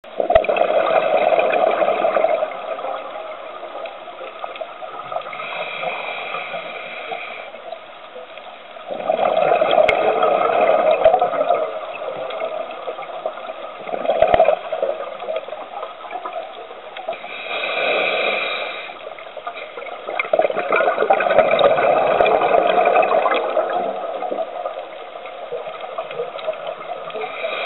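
Scuba diver's regulator breathing, heard underwater: bursts of exhaled bubbles every several seconds, with a thinner hiss of inhalation between some of them.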